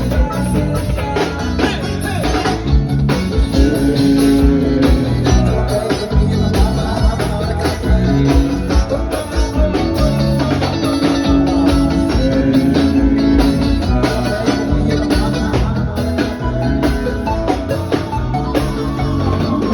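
Loud band music over a PA system during a sound check, with drums, bass, guitar and a singing voice.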